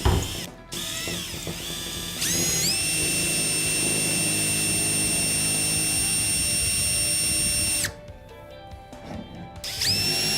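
Electric drill with a 3/16-inch bit boring a hole into a deer shed antler. The motor's whine rises as it speeds up, holds steady for about five seconds and stops, then runs again briefly near the end.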